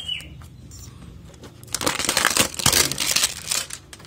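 Plastic wrapping on a cardboard box being slit with a razor blade and pulled off, crinkling loudly from about two seconds in.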